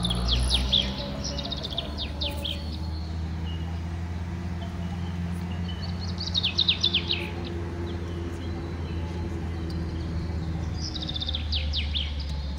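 Bird chirping in three bursts of quick, falling high notes about five seconds apart, over a steady low hum.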